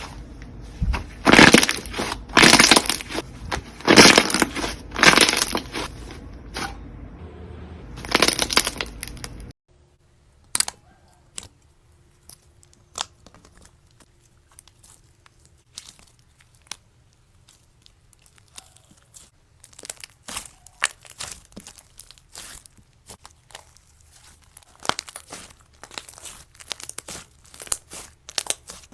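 Slime being squeezed and played with, making loud crunching, crackling bursts about once a second; after a sudden cut about nine seconds in, only quieter scattered crackles and pops.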